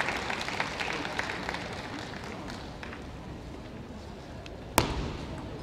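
Spectators' noise in a table tennis hall dying down after a point ends, with a little clapping, then one sharp knock a little before the end.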